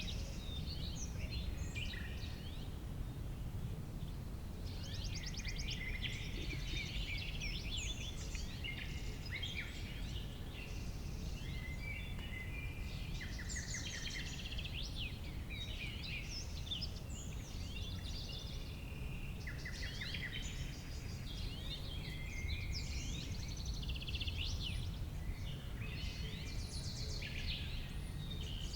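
Summer meadow ambience: several songbirds singing at once in quick overlapping chirps and trills, over a steady low rumble.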